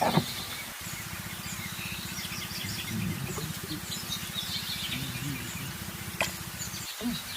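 Birds chirping over a low, evenly pulsing drone that starts abruptly about a second in and cuts off just before the end.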